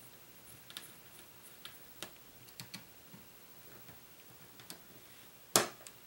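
A small screwdriver clicking and ticking against the tiny screws of a Nexus 4 phone's plastic midframe as they are backed out, with a few scattered light clicks and one much sharper click about five and a half seconds in.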